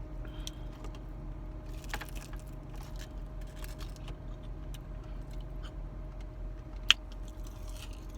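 Quiet eating noises, small clicks from chewing and handling curly fries, over a steady low hum, with one sharp click about seven seconds in.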